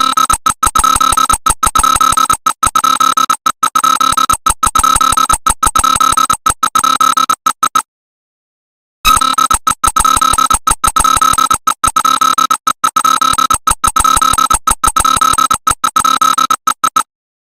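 Electronic emergency alert alarm: a loud, high-pitched buzzing tone chopped on and off many times a second. It comes in two runs of about eight seconds, with a second of silence between them near the middle, and stops shortly before the end.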